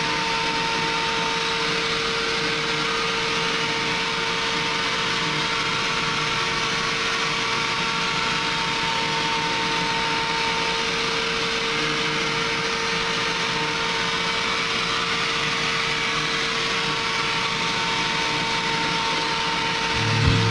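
CNC milling machine spindle running and a small end mill cutting a slot in a wooden CO2 dragster blank: a steady whine at a constant pitch over an even hiss.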